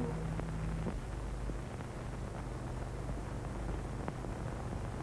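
The last held note of a film song dies out about a second in. After it come the steady hiss and low hum of an old film soundtrack, with a few faint crackles.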